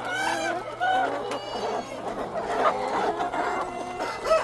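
A flock of chickens clucking and calling over one another, many short pitched calls overlapping throughout.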